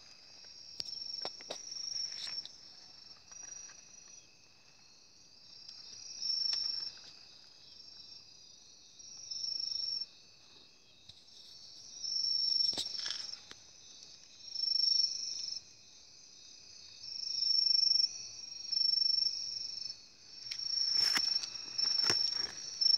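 Night insects calling: high-pitched trills in bursts, about one every second or two, over a fainter steady whine. Now and then a dry crackle of leaf litter as the nine-banded armadillo roots through it.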